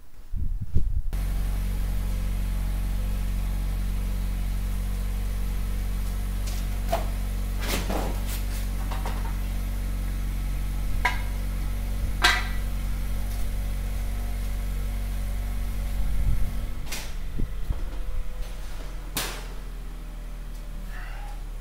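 Sharp knocks and clatters as real-estate yard signs and their frames are handled and set down against a garage wall. Under them runs a steady low machine hum that drops in level near the end.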